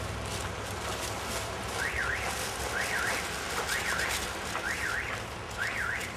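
A warbling electronic alarm tone repeats five times, about once a second. Each call rises, falls and rises again, over a steady outdoor hiss.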